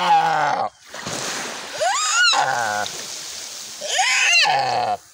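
A deer bleating in distress while being eaten alive by a Komodo dragon. It gives three loud, pitched cries about two seconds apart, each rising sharply and then dropping into a lower, rough tail.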